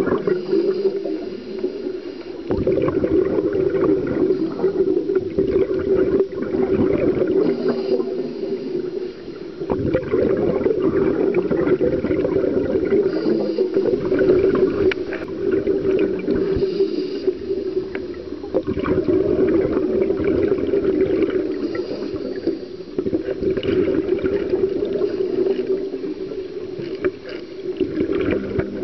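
Underwater sound picked up inside a sealed camera housing: a scuba diver's regulator breathing, with exhaled bubbles gurgling. It is a continuous muffled noise that swells and eases in slow cycles every several seconds.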